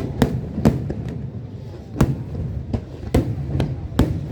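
Fireworks show going off: a string of sharp bangs at uneven spacing, about eight in four seconds, over a low continuous rumble.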